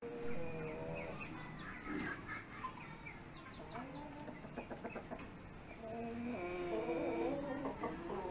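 Light Columbian Brahma chickens clucking in short, repeated calls, louder in the last few seconds. A thin high whistle is held for about two seconds past the middle.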